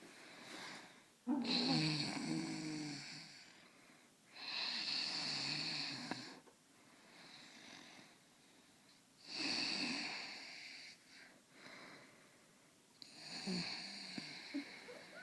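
A person snoring: four loud, rough snores of about two seconds each, with quieter breathing between them.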